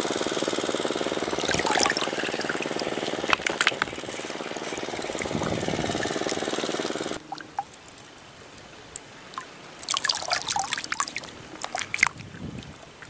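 Water trickling and dripping while a wading angler handles a freshly caught small fish and line, over the steady hum of a small engine. About seven seconds in the hum cuts off suddenly, leaving only scattered small trickles and splashes of water.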